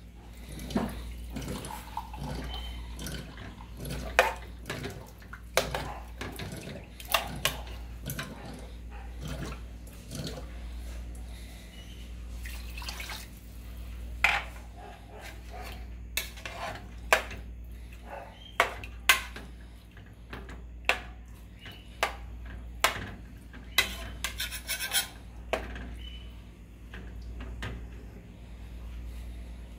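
Metal ladle stirring beef and broth in a large aluminium pot, knocking and scraping against the pot's sides in irregular clinks, about one or two a second, with a steady low hum underneath.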